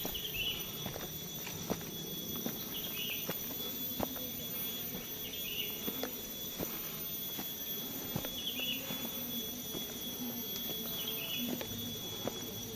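Footsteps on a dirt forest trail, with a steady high insect drone behind them and a short high call that repeats about every three seconds.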